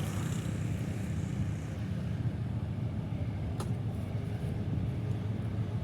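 PHA-20 diesel locomotive running with a steady low engine rumble as it pulls the train, with a single sharp click about three and a half seconds in.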